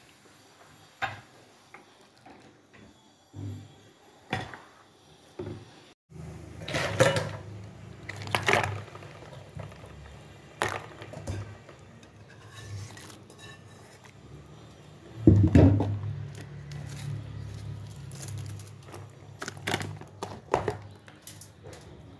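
Kitchen handling sounds: scattered clinks and knocks of a ceramic bowl and utensils against a pot, with the loudest knock about two-thirds of the way through. A low steady hum comes in about a quarter of the way through.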